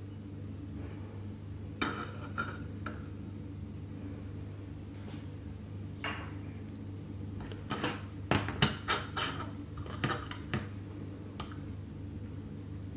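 Light metal clinks and taps from a titanium alcohol stove and its folding metal pot stand being handled on a metal tabletop. A few come at about two seconds, then a quick run of sharper clicks from about eight to ten and a half seconds, over a steady low hum.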